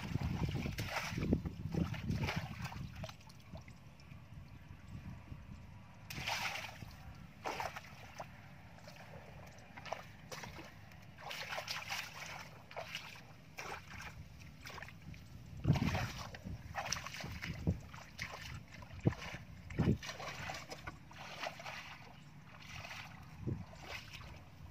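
Shallow water sloshing and splashing as a plastic basket is scooped through water and wet sand, busiest in the first few seconds. After that come scattered single splashes from wading.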